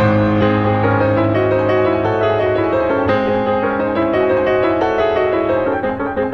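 Background music led by piano, with a steady bass line under moving melody notes.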